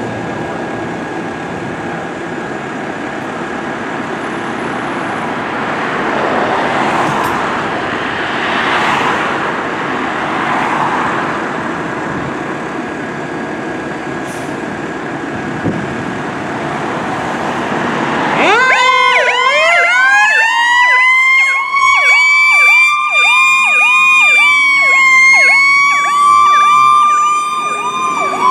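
Fire truck's diesel engine running steadily. About two-thirds of the way through, a siren winds up in a rising wail and holds steady, with a fast pulsing yelp over it, as the truck responds to a call.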